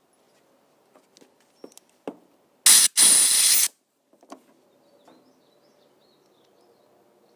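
A few light clicks of small parts being handled, then about three seconds in two short, loud bursts of hissing pressurized spray, the second lasting under a second.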